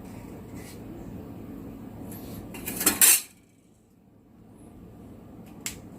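Galvanized iron sheet being handled and worked by hand: scattered metallic clicks and a loud rattling scrape about halfway through, after which the sound briefly drops almost to nothing before more light clanks.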